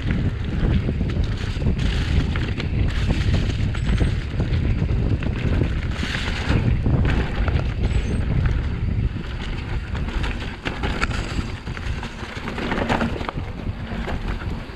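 Wind buffeting on the microphone and low rumble from a chest-mounted action camera on a mountain bike riding a dirt forest trail, with tyre noise and scattered knocks as the loosely fastened chest harness shakes.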